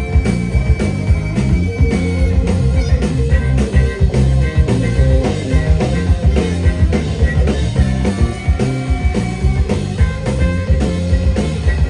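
Live rock band playing an instrumental passage without vocals: a steady drum beat and bass under a lead line that holds long notes.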